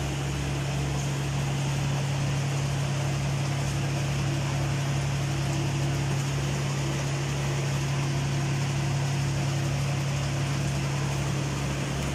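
40-litre planetary mixer's electric motor running steadily with a constant hum, on a test run after its motor bearings have been replaced.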